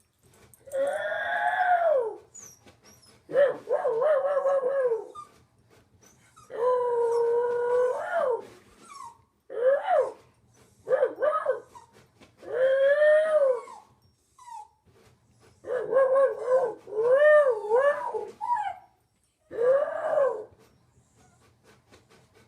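A dog howling in a string of drawn-out, wavering howls with short pauses between them.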